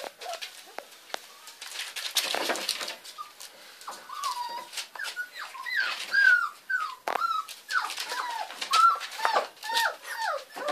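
English springer spaniel puppies whining and whimpering in many short, high, sliding cries, one after another, as they cry for their mother to come to them. Scattered clicks and a brief scuffle about two seconds in.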